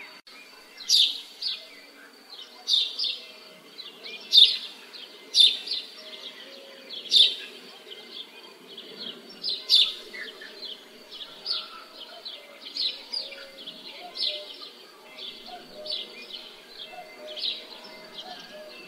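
Birds chirping repeatedly in short, sharp, high chirps, one every second or less, loudest in the first half, over a faint low background rumble.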